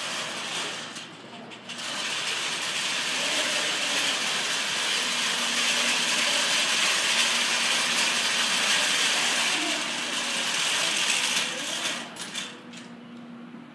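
FRC competition robot's electric motors and gearboxes whirring as it drives across carpet. The sound dips briefly about a second in, holds steady, then falls away near the end.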